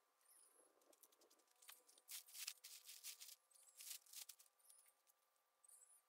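Faint rustling and scuffing from someone working around a dome tent and its plastic ground tarp on dry, sandy ground, in a cluster of short strokes about two to four seconds in.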